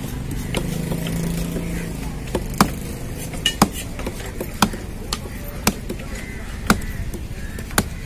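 Large knife chopping fish flesh into chunks on a wooden log block: sharp chops about once a second.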